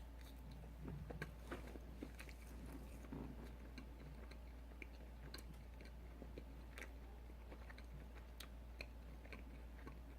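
Close-up chewing of a fried chicken strip: faint wet mouth smacks and small clicks scattered irregularly, busiest in the first few seconds, over a steady low hum.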